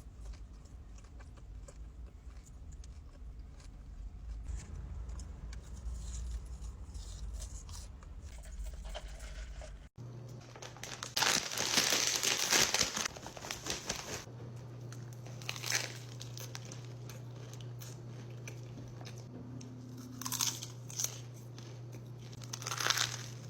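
Close-miked eating sounds: crinkling and tearing of food packaging or crisp food, with crunchy bites and chewing. The loudest crunching comes just after an abrupt change about ten seconds in, over a steady low hum.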